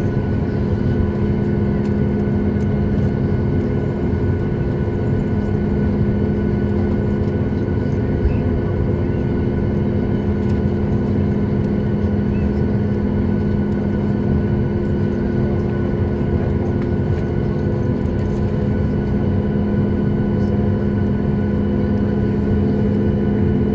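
Steady cabin drone inside a Boeing 737 MAX 8 standing still with its CFM LEAP-1B engines at idle: an even low hum with a few constant tones over a rush of noise, unchanging throughout.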